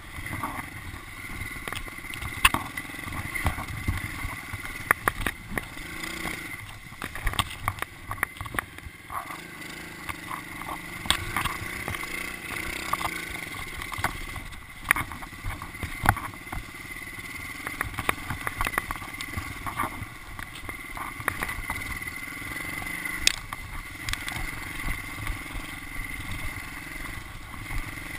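Small 110cc pit bike engine running steadily while being ridden, with frequent sharp knocks and rattles from the bike bouncing over rough grass ground.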